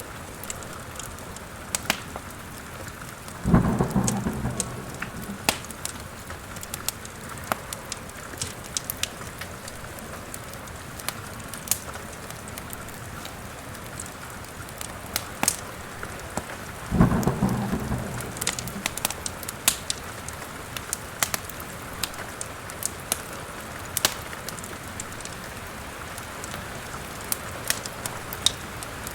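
Steady rain with many sharp crackles and pops from a wood fire in a fireplace. Thunder rumbles twice, a few seconds in and again just past the middle, each fading over a second or two.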